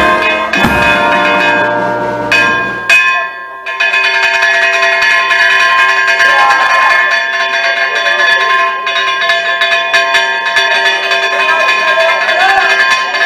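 Church bells ringing a fast, continuous peal. Band music with drums fades out in the first three seconds.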